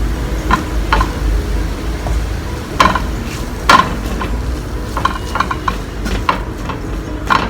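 A spoon stirring and scraping in a frying pan, with irregular knocks and clicks against the pan, as minced boiled chicken is mixed into sautéed onions over a light sizzle. A low steady hum sits underneath.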